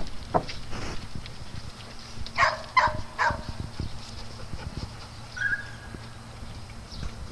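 Dogs at play in a yard: three quick, rough barks a little over two seconds in, among scuffling footsteps and low knocks.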